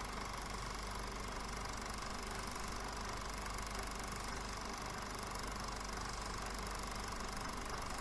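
Film projector running steadily: a continuous mechanical whirr with a constant hum.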